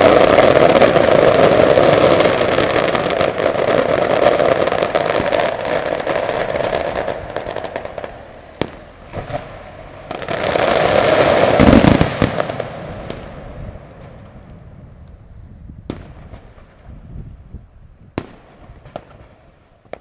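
Fireworks finale: a dense barrage of crackling shells and bangs that thins after about seven seconds, surges again around ten seconds with a deep boom just before twelve, then dies away to a few scattered single bangs near the end.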